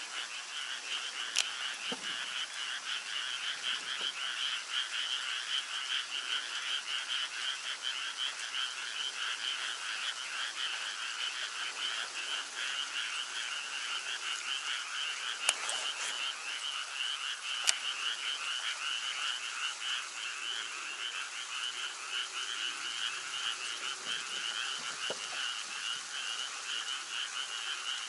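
Chorus of many frogs calling together, a dense, rapid, unbroken trilling. Three brief sharp clicks stand out, one early and two past the middle.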